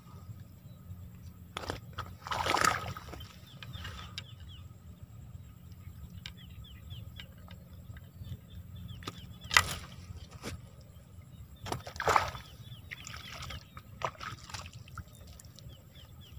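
Low wind rumble on the microphone with water sloshing at the bank and a few sharp knocks, loudest about two and a half, nine and a half and twelve seconds in. Faint short chirps repeat in the background.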